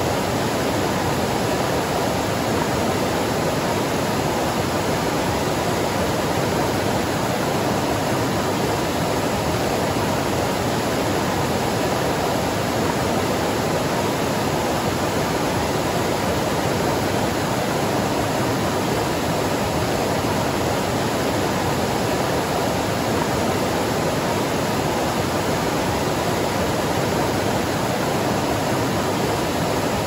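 Waterfall: a steady, unchanging rush of falling water, fullest in the low and middle range, with no separate splashes or changes.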